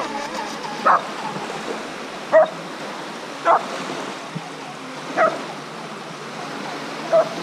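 A dog barking, five single barks one every second or two, over small waves lapping steadily on the shore.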